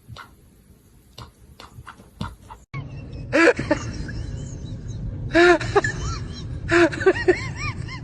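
A few light clicks or taps, then a cut to an animal's repeated short calls, each rising and falling in pitch, over steady background noise.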